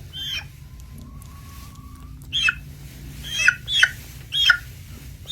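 A hen making about five short, high-pitched calls, each sliding down in pitch, mostly in the second half.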